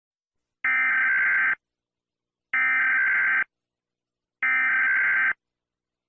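Emergency alert attention tone for an earthquake warning: three identical electronic blasts, each a little under a second long and about two seconds apart, with silence between them.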